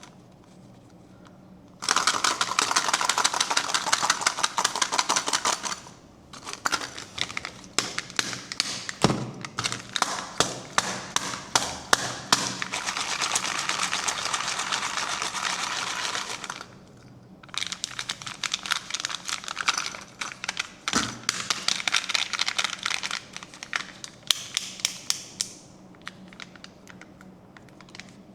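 A wrapper being crinkled and peeled open by hand: dense, fast crackling clicks in three long stretches, starting about two seconds in, with short breaks about six and seventeen seconds in.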